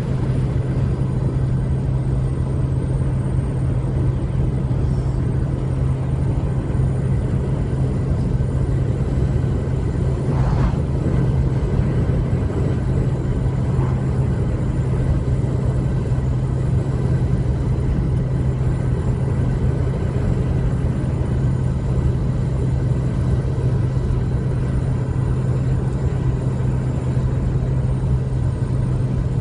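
An engine running steadily at a constant speed, with a low, unchanging hum. A single short knock about ten seconds in.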